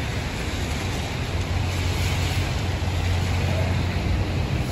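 Steady city traffic on rain-wet streets: a low rumble with tyre hiss from the wet road.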